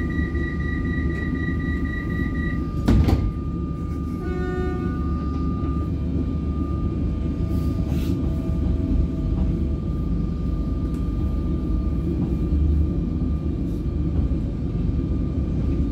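Alstom Comeng electric suburban train heard from inside the carriage, with a steady low rumble and a thin steady high tone. There is a single loud thump about three seconds in and a brief set of tones just after. From about halfway on the train pulls away from the platform with a faint, slowly rising motor whine.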